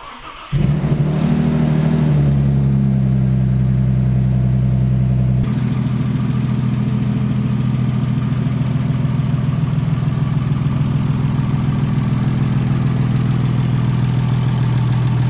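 An Audi S4's 2.7-litre twin-turbo V6 cranks briefly, catches about half a second in, and settles into a steady idle. This is its first start after a timing-belt job and an oil-leak repair, and the exhaust is ridiculously loud.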